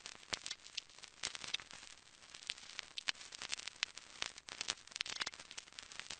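Faint static: a steady hiss with irregular crackles and pops, several a second.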